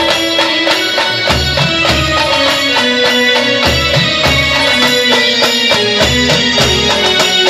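Loud instrumental band music through a loudspeaker rig: a fast, steady drum beat with deep bass thumps under a melody that steps from note to note.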